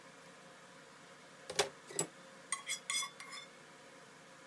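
Metal tongs knocking and clinking against a ceramic plate as a piece of cooked chicken thigh is set down. Two knocks come about a second and a half in, then a quick run of short ringing clinks.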